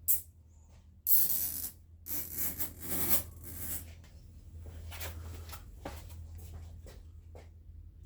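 Hand work on engine-bay parts: scraping and rubbing noises in two stretches, with a sharp click at the start and scattered small clicks afterward.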